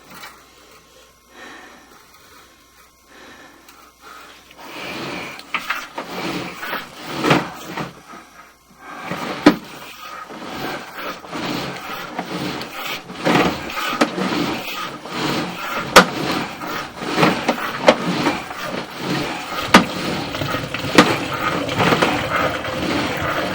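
Sewer-inspection camera's push cable being drawn back, with irregular scraping and clattering and sharp knocks that start about five seconds in.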